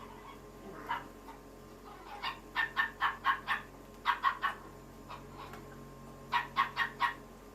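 An animal calling in three quick runs of short, pitched calls, four to six calls in each run at about four a second.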